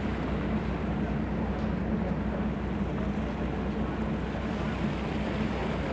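Steady low engine hum heard on board a ship at sea, with wind on the microphone and sea wash over it.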